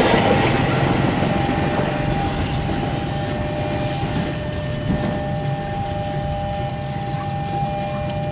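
Passenger train coaches rolling away along the track, the rumble and wheel noise fading gradually as the last car recedes.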